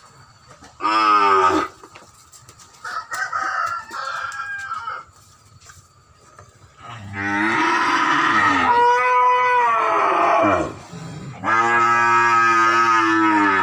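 Cattle mooing: a short call about a second in, a quieter one a few seconds later, then two long, loud moos in the second half.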